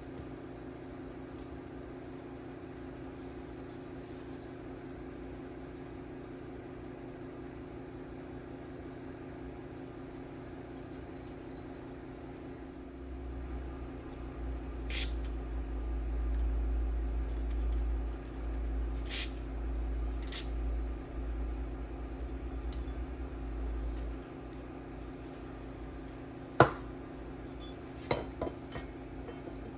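Small metal parts being handled and set down: scattered clinks and ticks, with one sharp click near the end, over a steady electrical hum. A low rumble runs through the middle stretch.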